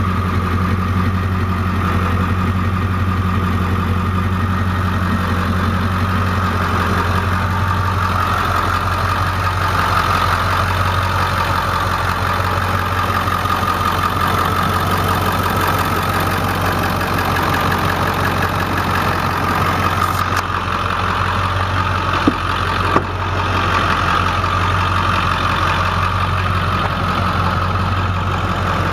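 2002 Ford F350's 7.3-liter V8 turbo diesel idling steadily. Two short clicks come about three-quarters of the way through.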